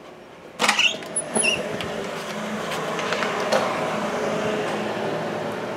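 Handling noise from a handheld camera being carried, with a sudden knock about half a second in and a brief squeak just after. From about a second in, a steady machine hum runs underneath.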